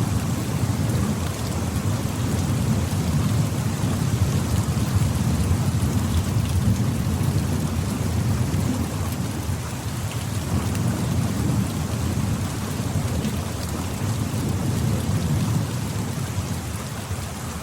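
Steady rainfall, an even hiss of drops with a constant low rumble beneath it.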